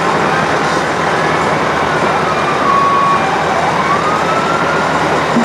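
Fire engine siren wailing: its tone falls slowly, holds briefly, then rises again, over the steady noise of the passing trucks.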